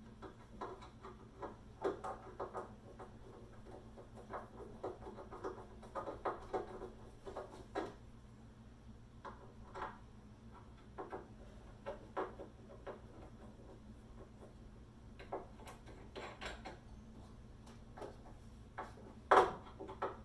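Irregular light knocks and taps on wooden furniture, with one louder knock near the end, over a steady low hum.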